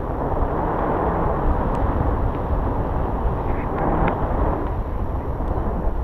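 Wind rushing and buffeting over the camera microphone in paraglider flight, a steady, gusting noise.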